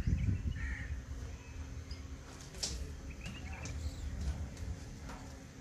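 Birds calling faintly in the background over a low rumble, with one sharp click about halfway through.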